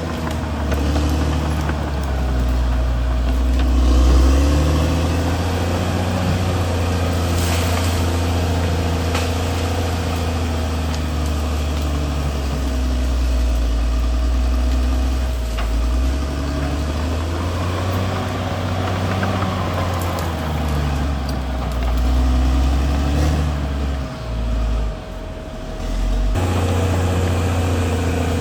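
CAT D6R XL bulldozer's diesel engine running steadily, its pitch and loudness shifting a little as the load varies. It dips briefly near the end, then the sound changes abruptly.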